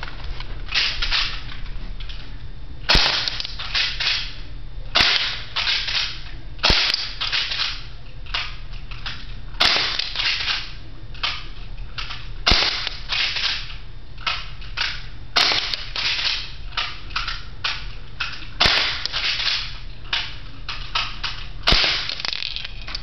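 Airstrike 240 airsoft gun firing single shots at target practice: a sharp snap every two to three seconds, each followed by a short noisy rattle.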